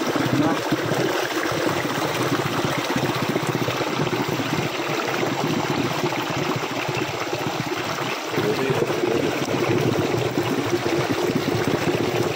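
Steady rush of stream water flowing.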